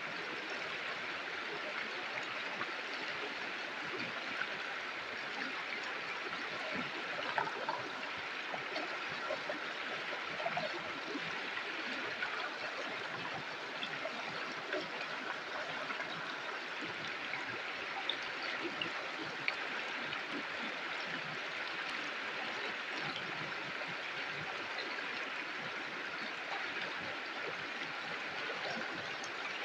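A river flowing: a steady rush of water with small gurgles and splashes scattered through it.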